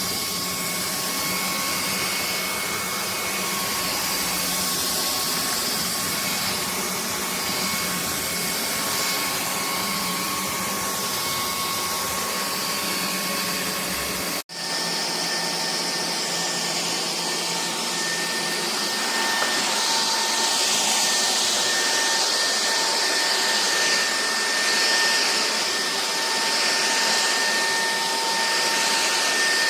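Bulelink cordless stick vacuum cleaner running steadily, its motor noise carrying a thin high whine. About halfway through the sound drops out for an instant, and afterwards the whine sits a little lower in pitch.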